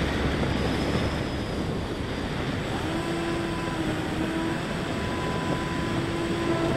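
Rushing airflow on the onboard camera of a Bix3 electric RC plane in flight, mixed with the steady drone of its motor and propeller. A few faint steady tones come in about halfway through.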